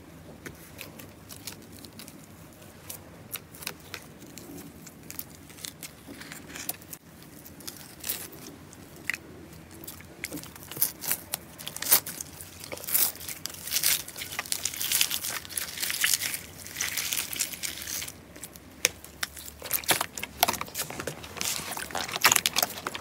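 Hands pressing and squishing slime: a pink, foamy-textured slime layer crackles and pops, then is torn away from clear orange slime beneath. The dense crackling gets louder and busier about a third of the way in.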